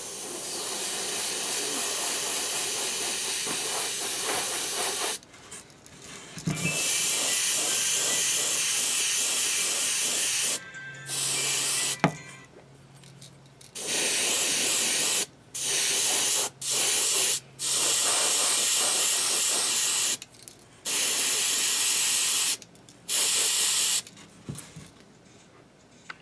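Airbrush spraying opaque white paint as a base coat onto a small crankbait: a hiss of air and paint that starts and stops abruptly, first one long burst of about five seconds, then about nine shorter bursts.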